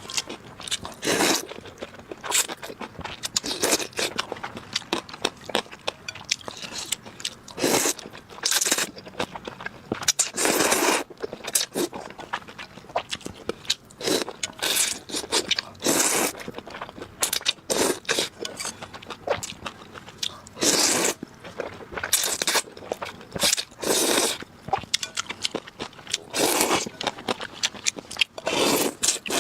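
Close-miked eating sounds: irregular crunching, biting and chewing, with a louder, longer bite or slurp every few seconds.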